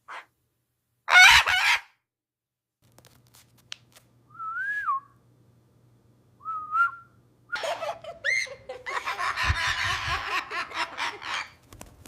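Bird calls: a short loud squawk about a second in, then two separate rising-and-falling whistles, then a long crowing call near the end. A faint low hum runs underneath from about three seconds in.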